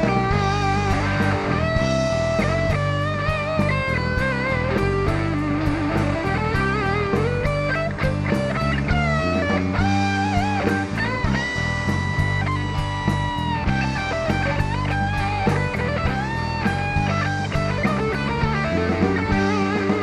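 Instrumental break of a rock song: an electric guitar solo with bent and held notes over bass and a steady drum beat.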